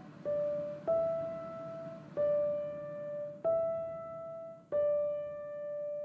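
Background music: a slow piano melody of five single notes, each left to ring out before the next is struck.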